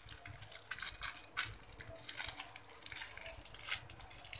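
Plastic piping bag crinkling irregularly as its end is twisted and tied.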